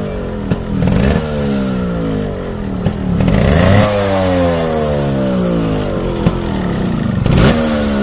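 Yamaha RX100's two-stroke single-cylinder engine being revved in blips: three times its pitch jumps up and then slowly falls back toward idle. A few sharp clicks come between the revs.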